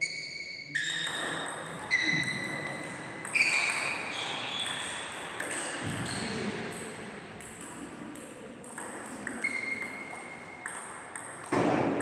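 Table tennis rally: the celluloid-type ball clicking off the rubber-faced paddles and bouncing on the table, each hit a sharp click with a short ringing ping, about a dozen strikes at irregular spacing, echoing in a large hall. A louder knock comes near the end.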